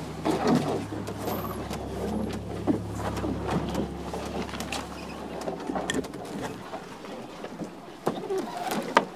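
Leaves and branches brushing and scraping against the hull of a canoe carried overhead, with footsteps through thick undergrowth and scattered sharp snaps and knocks.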